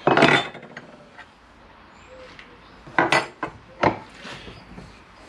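Metal tools and footrest parts clinking and clattering on a workbench as a bolted footpeg assembly is taken apart at a vise: a loud clatter at the start, then a few sharp clinks about three to four seconds in.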